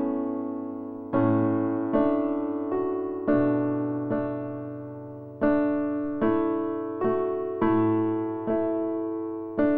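Slow background piano music: notes and chords struck about once a second, each ringing out and fading away.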